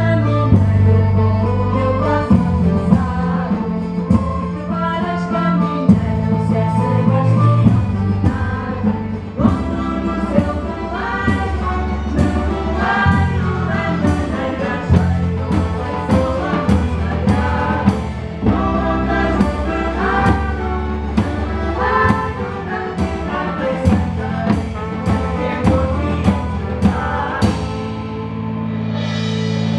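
Large folk ensemble playing live: acoustic guitars, fiddle, saxophone, trumpet and drum kit, with voices singing together over a steady drum beat.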